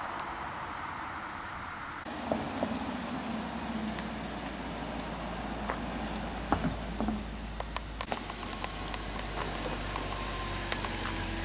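Road and wind hiss from a moving car for the first two seconds. Then a supercharged V8 Jaguar XKR rolls slowly past with a low engine note, tyre noise and scattered light ticks, loudest about two thirds of the way in.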